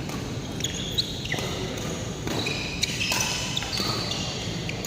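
Badminton doubles rally in a sports hall: court shoes squeak repeatedly on the floor, with a few sharp racket hits on the shuttlecock.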